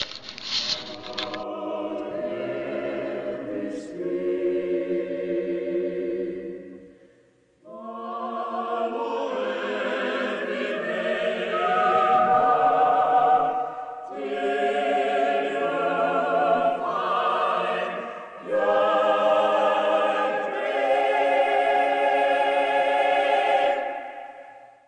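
Choral music: several voices singing long held chords, breaking off briefly about seven and a half seconds in and fading out at the end.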